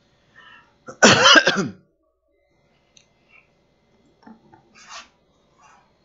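A man coughs once, loudly, about a second in, with a few faint small sounds later on.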